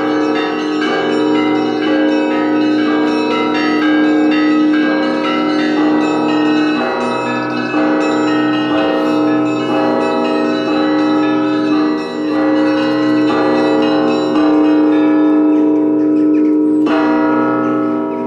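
Church bells ringing together: several bells of different pitches struck over and over, each tone hanging on under the next strokes. There is a heavier stroke near the end.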